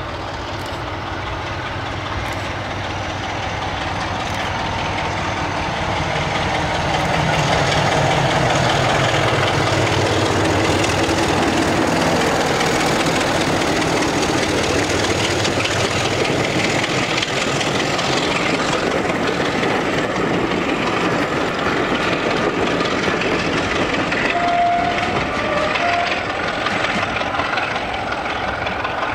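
Class 33 diesel locomotive's Sulzer eight-cylinder engine working under power as it hauls a train of coaches past. It grows louder over the first several seconds, then stays loud as the locomotive and coaches rumble by over the rails.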